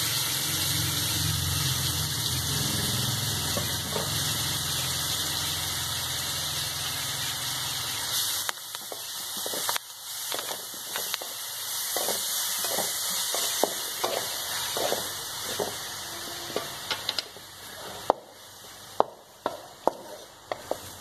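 Shallots, ginger, garlic, green chillies and curry leaves sizzling in hot coconut oil in a metal frying pan, with a low hum under it for the first eight seconds or so. From about eight seconds in, a wooden spatula stirs them, knocking and scraping against the pan in repeated sharp clicks.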